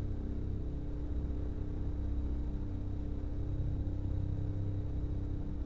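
A steady low rumble with a constant hum.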